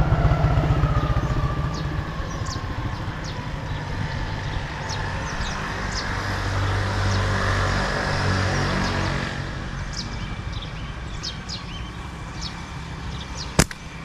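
A motor vehicle's engine running, loudest at the start and easing off, with a further drop about nine seconds in. Short high bird chirps sound over it, and there is one sharp click shortly before the end.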